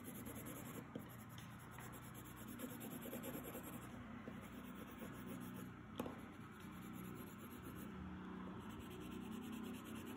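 Coloured pencil shading on paper: faint, steady scratching of the pencil lead rubbing back and forth across the sheet, with one light tap about six seconds in.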